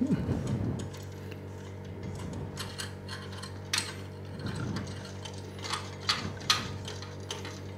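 Small clicks and scrapes of a threaded antenna connector being screwed by hand onto a PCIe Wi-Fi card's antenna port, over a steady low hum.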